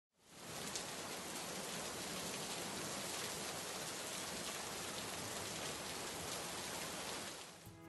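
Heavy rain falling in a steady downpour, an even hiss that fades in over the first half second and dips just before the end.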